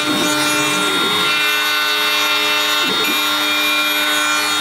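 Shapeoko CNC router milling wood: a steady whine from the spindle and cutter, with motor tones that dip and climb again a few times as the machine changes direction.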